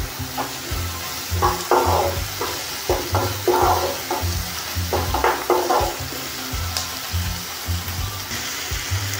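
A wooden spatula stirs and scrapes chopped onions frying in butter in a non-stick kadhai, in irregular strokes over a steady sizzle. Background music plays with low held notes.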